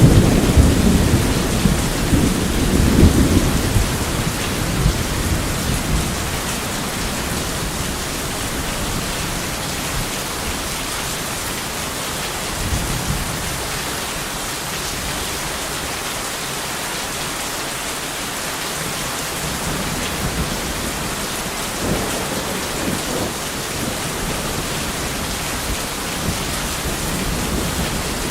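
Steady heavy rain with thunder: a loud low rumble at the start that dies away over the first few seconds, then a constant hiss of rain with fainter rumbles now and then.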